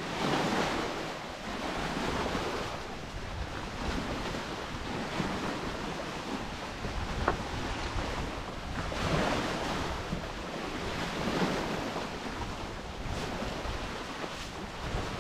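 Small lake waves washing against a rocky shore, swelling and easing irregularly every few seconds, with wind blowing over the microphone.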